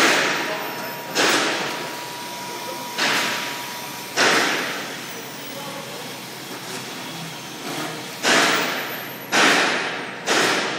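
Senco DuraSpin autofeed screwdriver driving screws through a steel beam into timber. There are seven drives, each a sudden burst that fades over about a second: four in the first half, then a pause, then three more close together.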